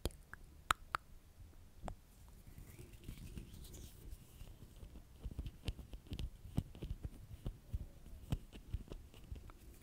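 Fingertips rubbing and tapping on a microphone's grille, heard close up as a low rumble with many soft thumps and scratchy clicks. A few sharper clicks come in the first second or so.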